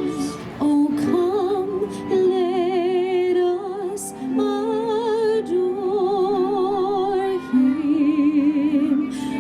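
A small group of carolers singing a traditional Christmas carol in harmony, holding long notes with a strong vibrato and moving between them a few times.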